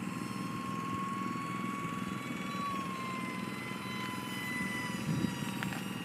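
Electric ducted fan of an E-flite UMX Habu ultra-micro jet whining steadily in flight, its pitch sinking slightly after the middle, over a low rumble.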